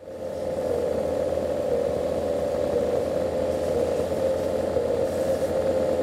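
Small two-stroke petrol engines of fifth-scale RC off-road cars running with a steady buzzing note that wavers only slightly in pitch.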